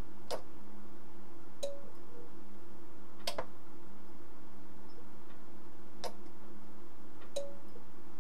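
Sencore LC102 capacitor-inductor analyzer clicking as its test button is pressed and its internal relay switches: five sharp clicks, irregularly spaced a second or more apart, two of them followed by a brief low tone. A steady low hum runs underneath. The relay has just been cleaned and is being checked for bad contact.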